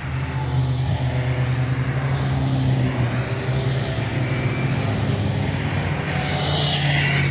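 Race cars passing one after another at racing speed, several engine notes overlapping. The loudest pass comes near the end.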